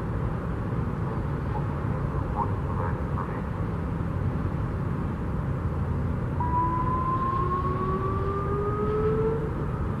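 Alertus HPSA-1200 electronic siren sounding a single whoop: a faint, distant tone that begins about six seconds in and rises steadily in pitch for about three seconds, played at reduced test volume. A steady low rumble runs underneath.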